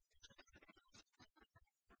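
Near silence, with only faint, irregular traces of sound.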